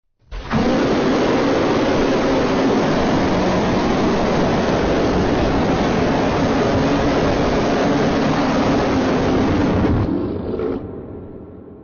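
A loud, steady rumbling roar of noise from a cartoon sound effect. It starts abruptly, holds even for about ten seconds, then drops off and fades out near the end.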